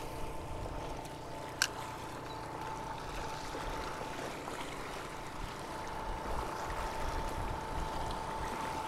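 Small waves lapping and splashing against the rocks of a stone jetty, over the steady hum of a portable generator running. A single sharp click about one and a half seconds in.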